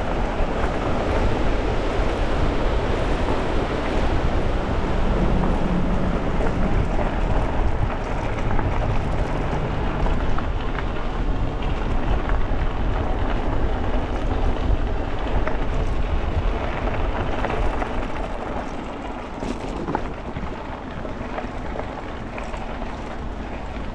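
Wind rushing over the microphone of an e-bike rider at riding speed, with steady rolling noise from the bike's tyres. It eases a little in the second half.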